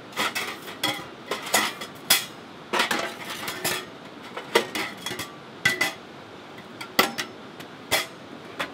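Metal clanks and clinks of a portable wood stove being handled and set in place: a dozen or so irregular knocks of its metal parts, some ringing briefly.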